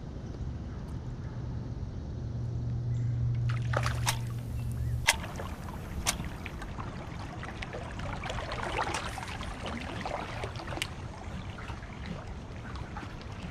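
Water sloshing and trickling against a kayak's hull, with a low steady hum during the first five seconds and three sharp clicks about four, five and six seconds in.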